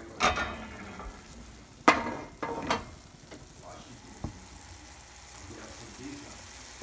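Gnocchi and tomato sauce sizzling quietly in a frying pan, with about five sharp clanks of metal cookware that ring briefly, the loudest about two seconds in.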